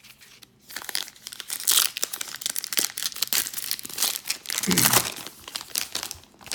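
Trading-card pack wrapper being torn open and crinkled by hand, an irregular run of crackling and rustling.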